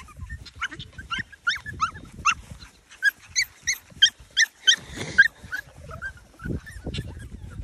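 A litter of F1B mini goldendoodle puppies whining and yipping: many short, high-pitched cries, several a second, overlapping from different pups, with a few dull low thumps around the middle.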